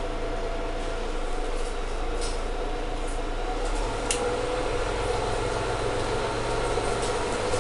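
Interior sound of a Mercedes-Benz Citaro G articulated city bus: the diesel engine and drivetrain running steadily, with a tone rising in pitch about halfway through as the bus pulls away. A single sharp click comes just after the rise begins.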